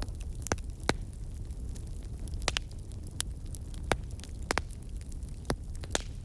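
Wood fire burning with a low steady rumble, and sharp crackles and pops of burning wood at irregular intervals, several a second apart.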